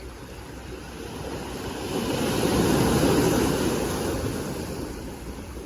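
A sea wave washing in, a rushing noise that swells to a peak about halfway through and then fades away.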